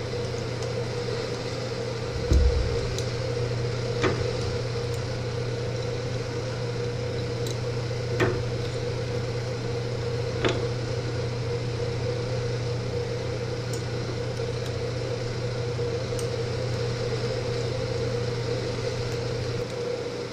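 Steady mechanical hum with a few sharp metallic clicks and clinks, four in all, the first with a dull thump, as the cutter bar is swapped and set in a fly cutter on a milling machine spindle. The hum fades out near the end.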